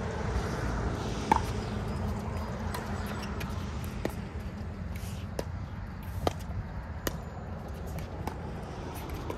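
Pickleball rally: paddles striking a plastic pickleball in a quick exchange of sharp pops, about one every three-quarters of a second, the loudest about a second in.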